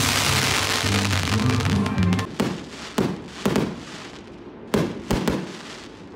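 A firework fountain hissing and crackling loudly over music for about the first two seconds, when the sound cuts off abruptly. Then aerial firework shells bang one after another, about six sharp reports each with a ringing tail, while the background fades.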